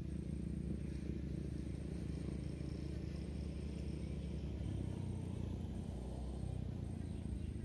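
Open-air background noise: a steady low rumble with a faint high-pitched whine that breaks off now and then.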